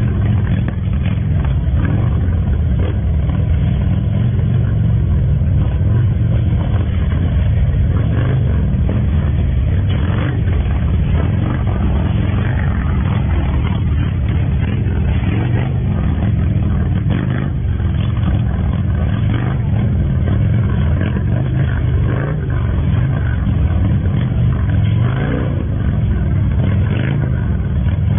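Engines of heavy touring motorcycles running loud and steady at low speed as they are ridden through tight slow-speed turns.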